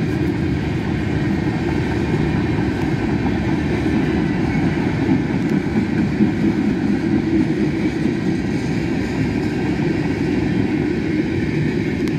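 Freight train of tank cars rolling past: a steady rumble of steel wheels on the rails.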